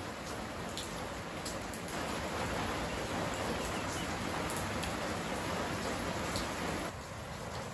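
Steady rain falling: an even hiss with scattered sharper drop ticks, a little louder about two seconds in and easing slightly near the end.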